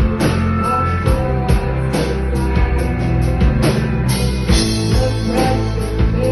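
Rock band playing live: a drum kit keeps a steady beat with cymbal hits over sustained bass and guitar chords.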